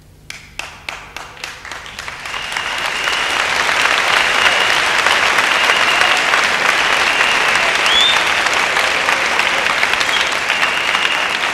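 Large crowd applauding: a few scattered claps at first, swelling within about two seconds into loud, dense applause that then holds steady.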